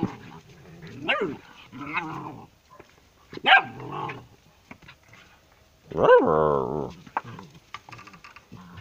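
Several dogs barking and yelping in short, separate cries. A longer, drawn-out whining cry comes about six seconds in.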